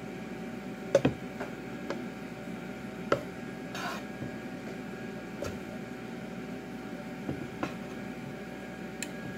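Wooden spatula moving around a nonstick frying pan of melted butter, with a handful of light knocks against the pan a couple of seconds apart over a steady background hum.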